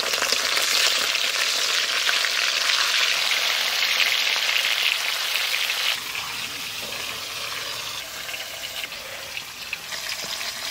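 Snakehead fish steaks frying in mustard oil in a wok, a steady loud sizzle. About six seconds in, the sound drops abruptly to a quieter sizzle.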